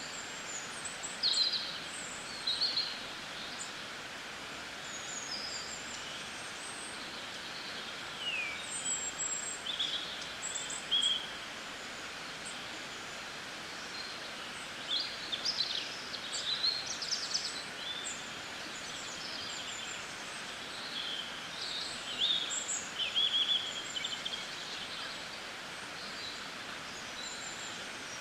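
Small birds chirping and calling in scattered short bursts over a steady background hiss.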